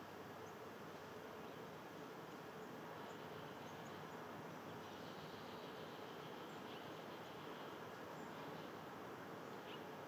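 Faint outdoor ambience: a steady low hum and hiss, with a few short, faint, high bird chirps scattered through it.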